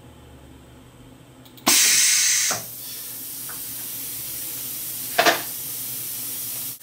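A hiss starts suddenly about two seconds in, loud for under a second, then settles into a steady softer hiss, with one short knock about five seconds in.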